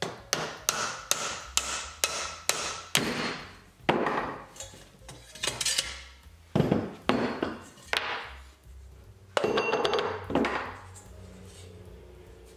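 Strikes on a thin brass carriage-lamp body set over a bench stake: a run of quick taps in the first few seconds, then slower, heavier blows, the brass ringing briefly after each.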